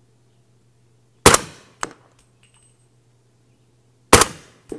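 Two rifle shots from a Faxon ARAK 21 fired from a bench rest, about three seconds apart, each ending in a short decaying echo. A smaller sharp click follows each shot about half a second later.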